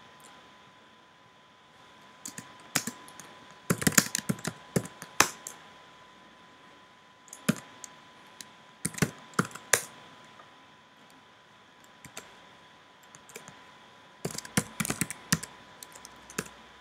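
Typing on a computer keyboard: keystrokes in several short bursts with pauses between.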